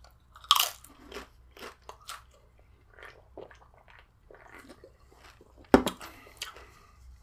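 Tortilla chip bitten with a loud crunch about half a second in, followed by crunchy chewing. Near the end, a single sharp knock as an aluminium soda can is set down on the table.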